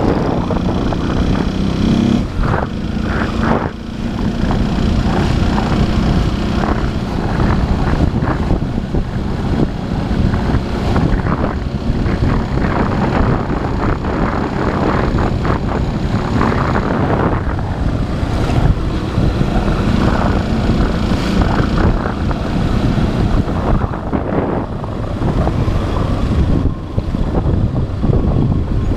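Motorcycle engine running under way on city streets, its note holding and shifting with the throttle, under the rush of road and wind noise.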